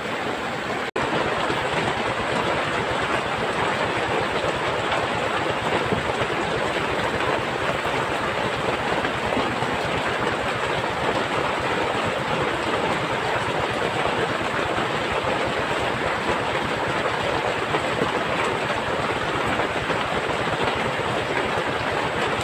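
Heavy tropical rain pouring down, a loud, dense, steady hiss heard from inside a wooden hut, with a brief break about a second in.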